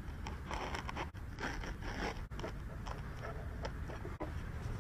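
Foam packing scraping and rustling as a battery and parts are pressed into cut-out foam inserts of a cardboard box, a run of scrapes in the first two seconds, then a few small clicks.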